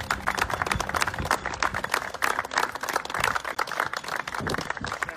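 A small group of people applauding: many hand claps overlapping steadily.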